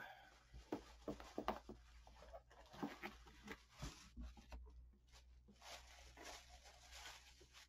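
Faint rustling and crinkling of a paper wrapping and a plastic bag being handled and pulled open, with many small irregular crackles.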